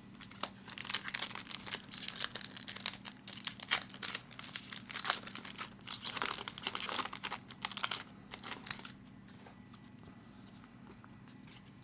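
Foil wrapper of a 2011-12 Upper Deck SP Authentic hockey card pack being torn open and crinkled, in quick rustling bursts that stop about nine seconds in, leaving a faint steady hum.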